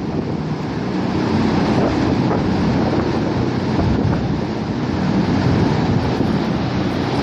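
Recycled flush water rushing in a steady torrent along a dairy barn's alley floor.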